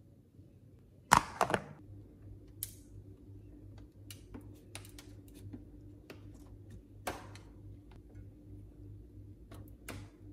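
Plastic ice cube trays being set down and stacked on a freezer shelf: a loud clack about a second in, then scattered light clicks and knocks of plastic on plastic, over the freezer's steady low hum.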